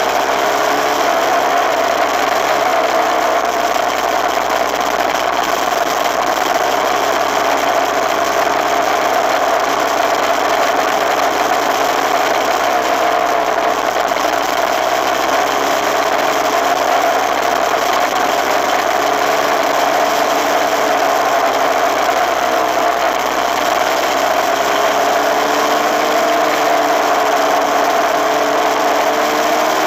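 Suzuki RMX250S 250cc single-cylinder two-stroke engine running steadily as the bike rides along, heard from a handlebar-mounted camera over a constant rush of wind and road noise. Its pitch rises a little near the end.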